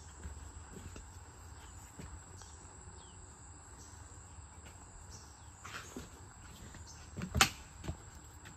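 Steady high insect drone over low outdoor rumble, with a few faint knocks and one sharp loud knock about seven seconds in.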